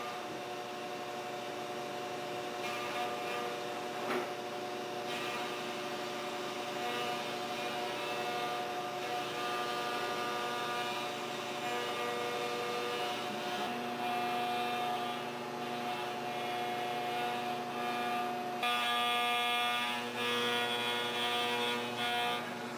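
CNC vertical milling machine running, its spindle driving an end mill through a metal block: a steady machine whine made of several held tones over a hum. The pitches shift and grow a little louder for about four seconds near the end.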